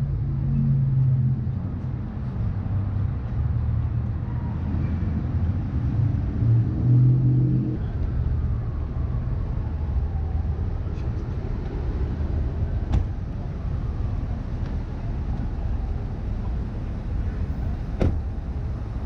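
City street traffic: a vehicle engine running close by for the first several seconds, then a steady traffic rumble, with two sharp clicks in the second half.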